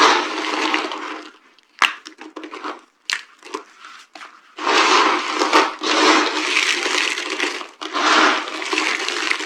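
Dry soap being crushed: a dense, crumbly crunching, then a gap broken by a few separate sharp cracks and snaps, then steady crunching again from about halfway through.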